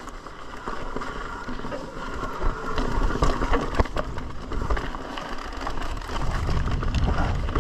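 Mountain bike riding over a rocky dirt trail: tyres rumbling and crunching over gravel and rock, with frequent sharp knocks and rattles from the bike.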